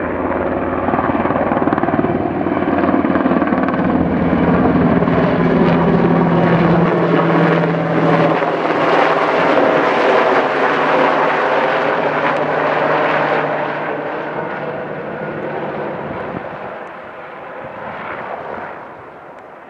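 UH-60 Black Hawk helicopter passing overhead. Its rotor and engine sound builds to a peak about halfway through and then fades as it moves away, and its low tones drop in pitch as it goes by.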